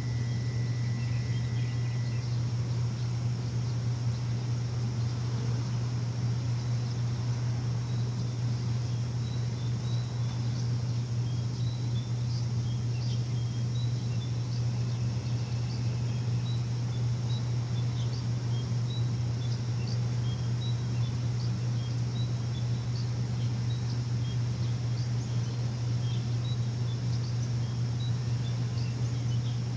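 A steady low machine hum with a steady hiss over it, and short high chirps scattered through it from about a third of the way in. A thin steady whistle-like tone sounds for the first two seconds.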